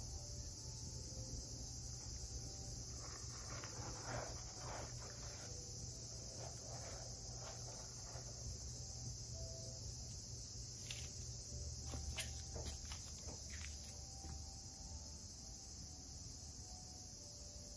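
A cat scratching and digging in granular litter in a plastic litter tray, a run of short rustling scrapes, then a few light clicks. A steady high hiss and a low hum lie underneath.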